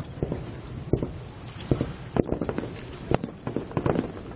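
Distant aerial fireworks shells bursting: a string of sharp bangs at uneven intervals, coming several a second in the second half.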